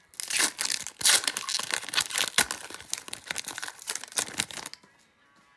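A foil trading-card pack wrapper being torn open and crinkled by hand: dense, sharp crackling and ripping that stops suddenly near the end.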